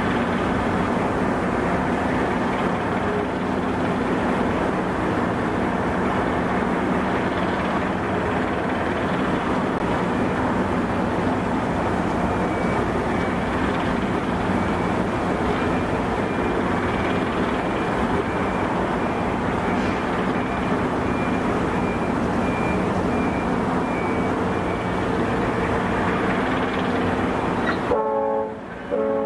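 Steady, loud rumble and hiss of an Arleigh Burke-class destroyer's gas-turbine machinery, with a faint, broken high tone through the middle. Near the end the noise cuts off abruptly and gives way to a few held tones.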